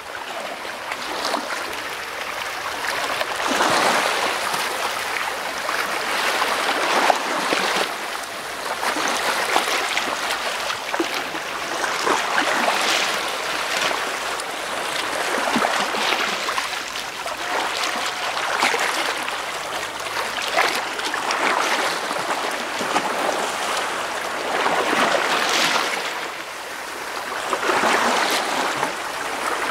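Small sea waves washing in over shallow rocks close by, the water rushing and splashing and swelling every few seconds as each wave comes in.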